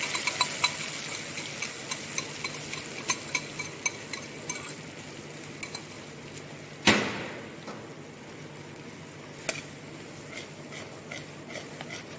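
Steel spatula clinking and scraping against an iron kadhai while a spiced curd gravy is stirred into hot oil on a low flame, with a faint sizzle underneath. There are many quick clicks in the first few seconds and one loud ringing clank about seven seconds in.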